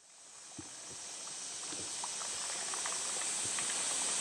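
A steady high hiss that fades in, with a few faint soft knocks.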